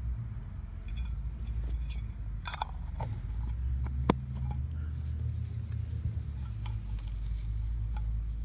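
Handling noises as fingers work char cloth into a dry bark-fibre tinder bundle: soft rustling and small crackles, with one sharp click about four seconds in, over a steady low rumble.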